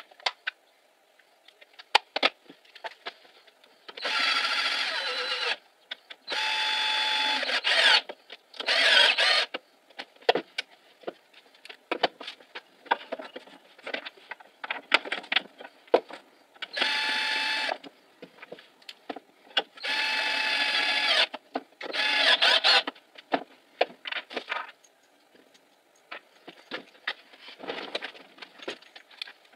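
Cordless drill-driver running in six short bursts of one to two seconds with a steady motor whine, driving screws into the wooden workbench frame. Clicks and knocks of wood and tools being handled come in between.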